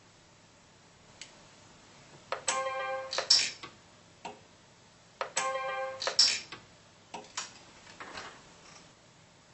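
Orion Pulse 100c pulse arc welder making two welds a few seconds apart, each a short buzz of about a second that ends in a sharp snap as the arc fires. A few lighter clicks follow near the end.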